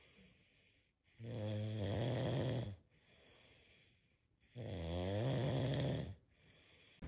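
A pet snoring: two long, even snores a few seconds apart.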